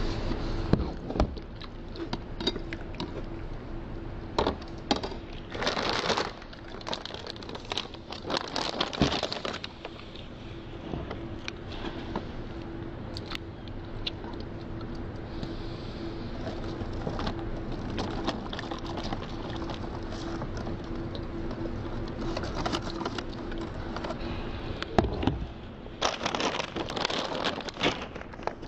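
Spoon clicking and scraping in a plastic food container of cereal, scattered small clicks over a faint steady hum. Near the end, a plastic bag of cereal rustles and crinkles.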